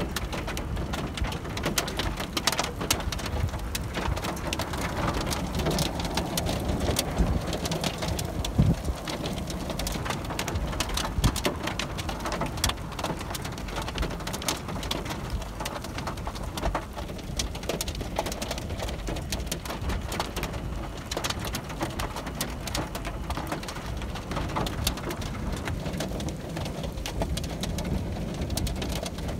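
Thunderstorm wind and rain: a steady low rush with many light ticks of scattered raindrops.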